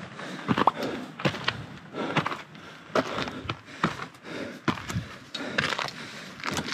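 Hiking footsteps scuffing and crunching on rough stone steps and gravel, about two steps a second.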